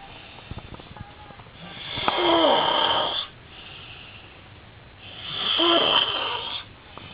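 A man snoring loudly in his sleep: two long snores about three and a half seconds apart, each lasting about a second and a half, with quieter breathing between them.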